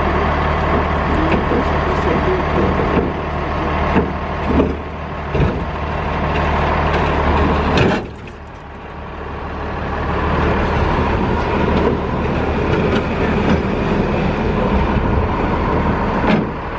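A heavy vehicle's engine running steadily, with a few knocks; it drops away sharply about eight seconds in and builds back up over the next few seconds.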